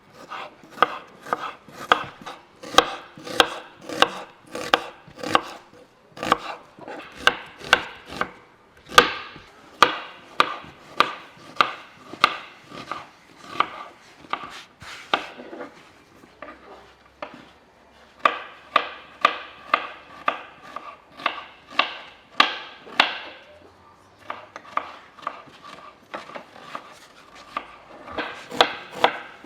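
Steady rhythmic chopping strikes, about two a second, each with a short ringing tone, pausing briefly a few times.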